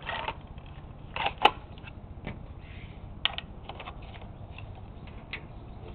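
Scattered clicks and light taps of a JG G36 airsoft rifle's parts being handled as the slide-on cover is fitted back on. The sharpest click comes about a second and a half in.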